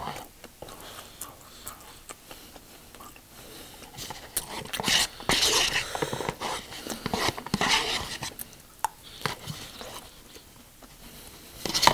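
Close-up eating sounds: chewing with scattered mouth clicks, and cutlery scraping and clinking on a plate of nasi goreng (Indonesian fried rice) in two spells around the middle as the last of the rice is gathered up.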